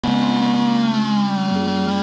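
Stihl chainsaw engine running at high speed, its pitch drifting slightly lower.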